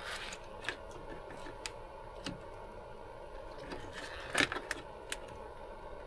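Hands handling a car door's wiring harness: faint rustling with a few light, sharp clicks of wires and plastic connectors, the loudest about four and a half seconds in.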